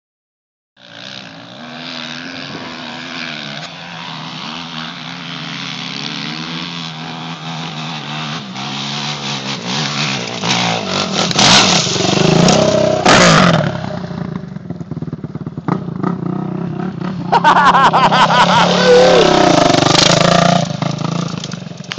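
Dirt bike engine revving hard on a hill climb. It grows steadily louder as it comes closer, with loud bursts of throttle about halfway through and again near the end.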